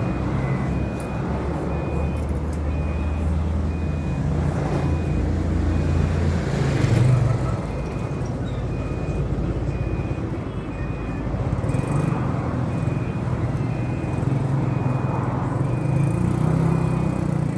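An engine running with a low hum that keeps shifting in pitch. A faint high beep repeats about one and a half times a second throughout.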